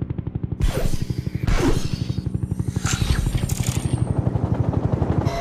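Helicopter rotor beating in a fast, even chop, with several loud whooshing sweeps between about half a second and four seconds in, one falling in pitch.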